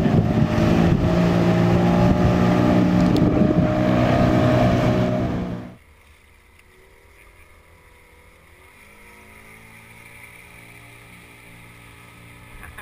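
Yamaha outboard motor pushing an inflatable boat, running steadily and loudly with wind and water rush. About six seconds in the sound drops suddenly to a much fainter, steady motor hum.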